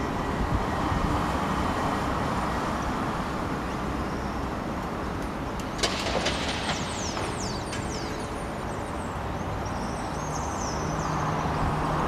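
Steady road traffic noise from passing vehicles. Small birds give quick, high chirps that fall in pitch about halfway through and again near the end, and a low steady hum comes in near the end.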